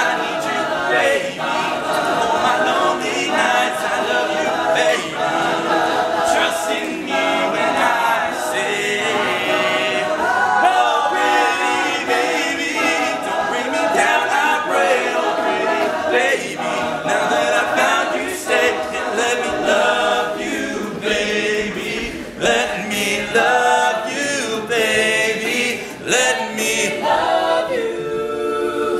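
All-male a cappella group singing in close harmony, several voices and no instruments.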